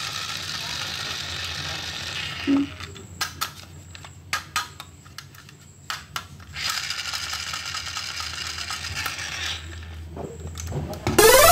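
A small plastic toy train being handled and turned over in the hands: a soft knock, then a run of light, sharp plastic clicks and taps. A loud rising tone cuts in at the very end.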